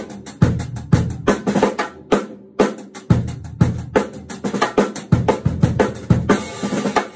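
A drum kit played with sticks in a steady groove of kick, hi-hat and snare. The snare is muffled by a wallet lying on its head, so its hits are dry and cut off with little ring. A brief cymbal wash comes near the end.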